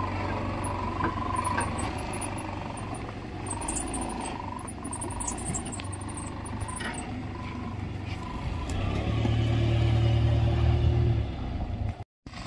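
A motor vehicle's engine running steadily, growing louder for a couple of seconds near the end, with faint high chirps over it in the first half. The sound drops out abruptly for a moment just before the end.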